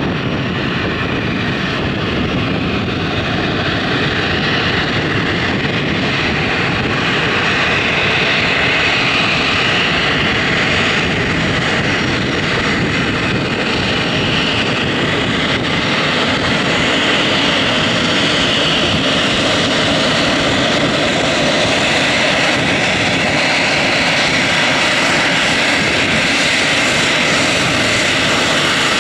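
Twin jet engines of a Brussels Airlines Airbus A320 at taxi power: a steady whine and rush that grows a little louder as the aircraft comes closer.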